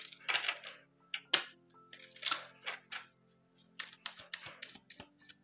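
Oracle card deck being shuffled by hand: an uneven run of short, crisp papery riffles and slaps, about three a second. Soft background music plays under it.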